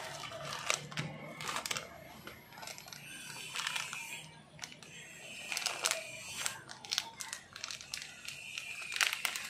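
Plastic packaging crinkling and rustling as a padded mailer and clear plastic bags holding watch straps are handled, in irregular clusters of crackles.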